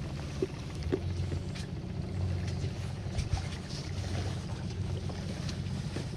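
Boat motor running steadily at idle, a low even hum, with a few light clicks over it as a hooked fish is played beside the boat.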